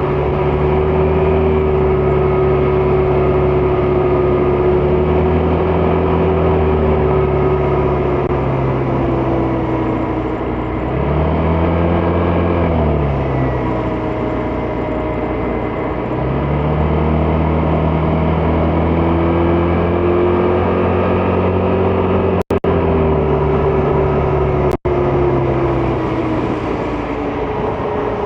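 Vespa GTS 300 scooter's single-cylinder engine under way, its pitch rising and falling with the throttle several times, over a steady rush of wind and road noise. The sound cuts out briefly twice near the end.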